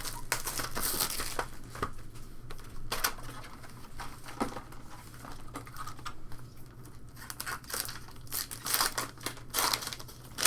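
Foil trading-card pack wrappers crinkling and tearing as packs are opened, with irregular rustles and snaps of handled cards and wrappers.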